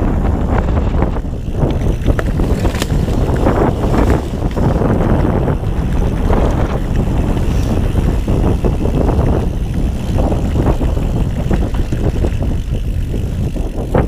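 Ghost Riot mountain bike rolling fast down a dirt forest trail: tyre noise and wind buffeting the camera's microphone, with frequent rattles and knocks from the bike over bumps.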